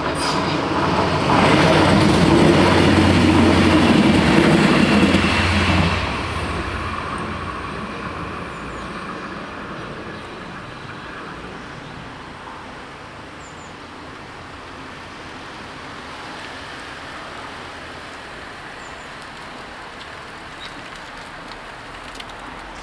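LINT 41 diesel multiple unit passing over the level crossing: a low engine drone with wheels running on the rails. It is loud for about five seconds from a second in, then fades away, leaving steady road-traffic noise as cars start to move.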